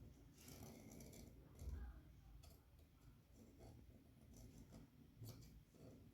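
Very faint handling sounds: scattered soft rustles and small clicks, barely above room tone.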